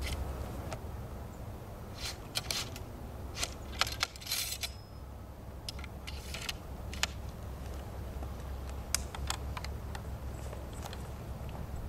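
An 1853 Enfield muzzle-loading rifle musket being loaded by hand: scattered metallic clinks and rattles of the steel ramrod and the loading gear, with a short rustling burst about four seconds in.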